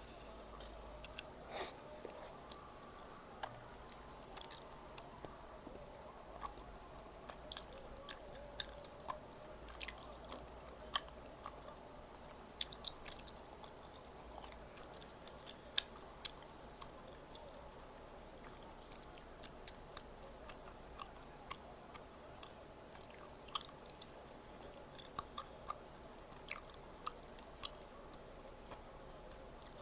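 Close-miked chewing of food, with many short, crisp crunching clicks at irregular intervals.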